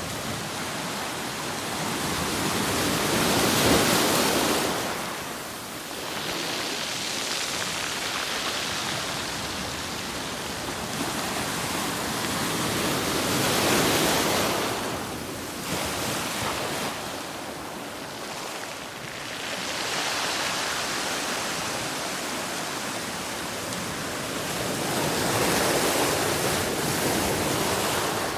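Ocean surf: waves washing in and breaking over a steady hiss of water, the sound swelling three times, about ten seconds apart.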